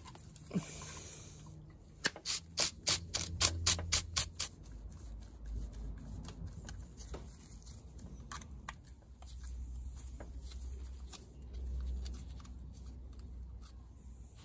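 Hand tools and small metal parts being handled while taking apart corroded trailer tow bar sockets: a quick run of sharp clicks, about five a second, a couple of seconds in, then scattered light clicks and taps.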